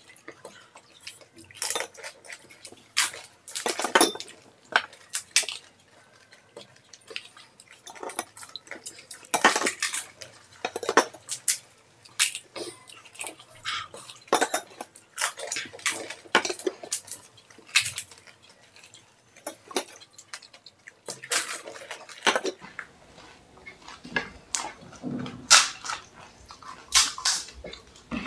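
Crisp, hollow panipuri shells being cracked open with the fingers, dipped into clay pots of spiced water and crunched while eating: many sharp, irregular crackles and clicks, with small splashes and drips of water.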